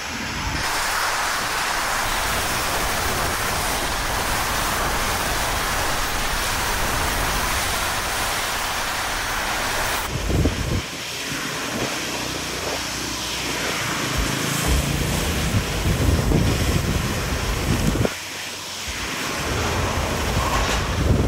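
Hurricane wind and rushing storm-surge water: a loud, steady roar of noise. About halfway through it changes abruptly to gusty wind buffeting the microphone, with low rumbles.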